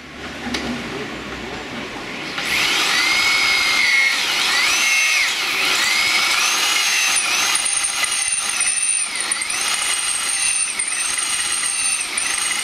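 Corded hammer drill boring through an iron fitting into a wooden beam. It is softer for the first couple of seconds, then runs loud, its motor whine dipping and recovering over and over as the bit bites under load.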